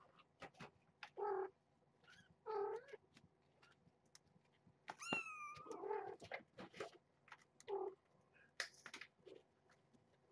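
A mother cat and her young kittens meowing: several short meows, and one higher, longer meow about five seconds in, with faint clicks and taps in between.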